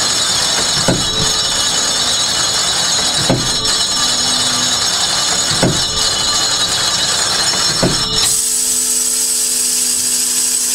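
Tower clock striking the hour on its bell: four hammer blows about two and a half seconds apart, each leaving a steady ringing hum, the last of five strokes for five o'clock. A loud steady hiss runs under the strokes throughout.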